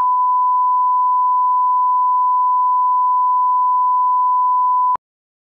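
Steady 1 kHz test tone (a continuous pure beep) accompanying colour bars, which cuts off suddenly about five seconds in.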